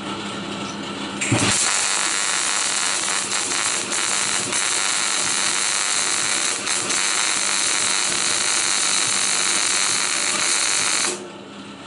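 SIP Migmate Turbo 130 MIG welder arc crackling steadily as a weld bead is laid, starting about a second in and cutting off suddenly near the end. A low steady hum is heard before and after the arc.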